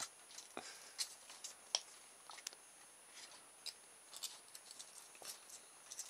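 Folded sandpaper rubbing along the end of a coated wire, faint irregular scratches and rasps as the insulation is stripped off.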